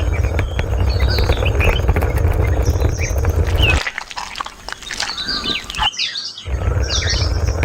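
Small birds chirping, short calls and quick pitch glides, over a steady low rumble that drops out briefly twice.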